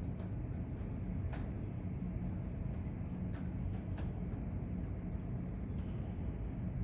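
Steady low outdoor city rumble, with a few faint sharp clicks at scattered moments.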